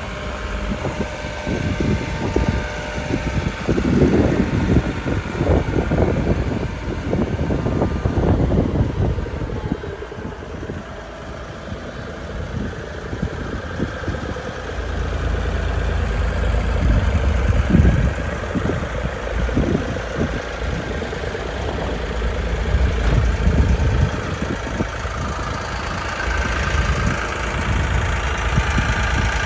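JCB 60C-2 midi excavator's diesel engine running, with irregular knocks and clatter in the first several seconds and a deeper, heavier rumble from about halfway through.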